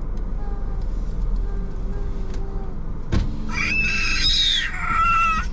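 Low, steady rumble of a car moving slowly, heard from inside the car. About three and a half seconds in, a loud, high-pitched squeal with several pitches rises over it for nearly two seconds.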